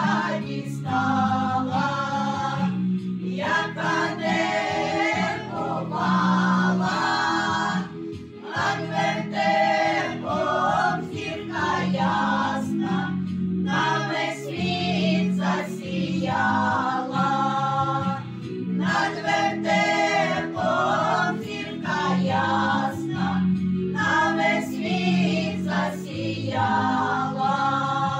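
A women's folk vocal ensemble singing a song together, in phrases a couple of seconds long with short breaks for breath between them.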